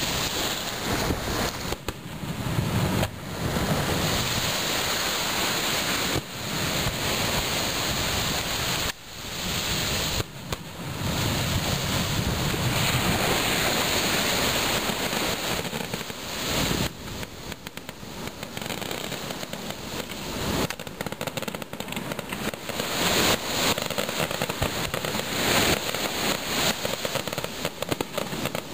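Fireworks display going off in a dense, continuous barrage of bangs and crackling, rising and falling in loudness throughout.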